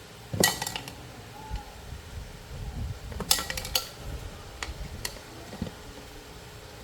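Hard objects clinking and clattering, as when dishes or utensils are handled: two quick clusters of clinks about three seconds apart, with soft thuds between.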